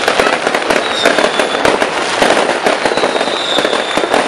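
Fireworks bursting in rapid succession: a dense, continuous crackle of many pops and bangs, with a thin falling whistle twice.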